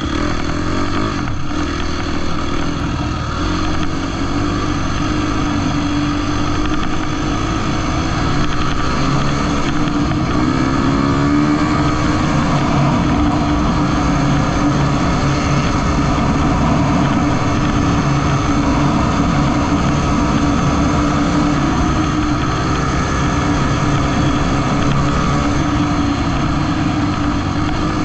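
Husqvarna dirt bike engine running under way, heard close up from the bike. The engine note climbs about ten seconds in as the rider opens the throttle, then holds steady.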